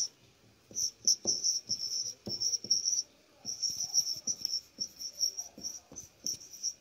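Someone writing by hand: a run of short, high, squeaky strokes of a writing tool, with brief pauses between groups of strokes.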